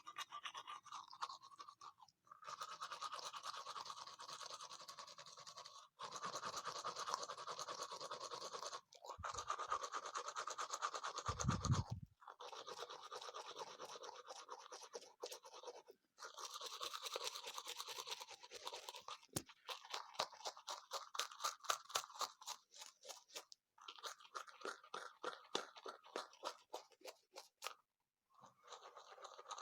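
Toothbrush scrubbing teeth in stretches of a few seconds with short pauses between them. Later on the back-and-forth strokes come quick and distinct.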